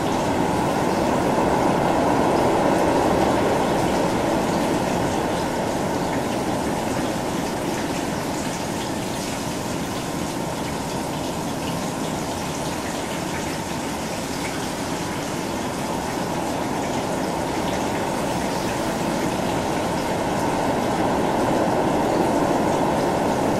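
Omnisphere 2 rain-texture patch built from field-recorded night rain, layered with a processed copy of the rain, a Juno-60 sub and noise. It gives a dense, dull hiss of rain with most of its weight in the low mids and a darkened top. It swells a little a few seconds in and again near the end.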